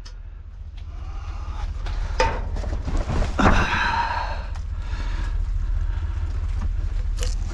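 A low steady rumble with a few sharp knocks of things being handled, and a breathy exhale about three and a half seconds in.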